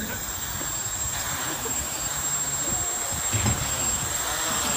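Quadcopter drone's electric motors and propellers spinning on the ground just before lift-off: a steady rushing with a thin, steady high whine over it.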